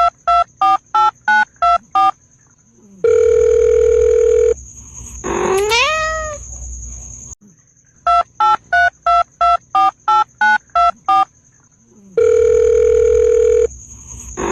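Telephone keypad tones dialing a number, about ten quick beeps, then one long beep, then a cat's rising meow; the sequence plays twice.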